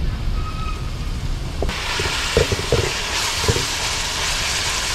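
Sliced onions sizzling in hot coconut oil in an aluminium pot, stirred with a wooden spatula. The sizzle grows much louder about a second and a half in, with a few soft scrapes of the spatula against the pot.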